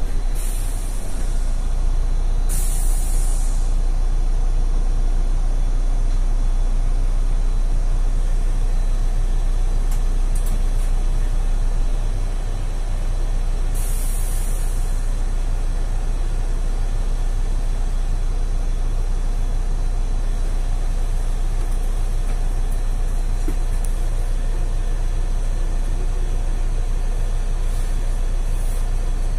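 Mercedes-Benz Citaro city bus idling at a standstill, a steady low engine hum heard from inside the cabin. Short hisses of released compressed air from the bus's air brakes and pneumatics break in a few times: twice in the first few seconds, again about 14 seconds in, and faintly near the end.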